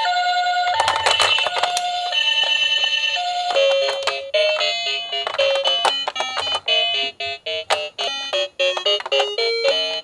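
Toy ambulance's electronic two-tone siren, alternating a high and a low note for about the first three and a half seconds. Then a quick electronic tune from the toy, set off by pressing the character buttons on its roof.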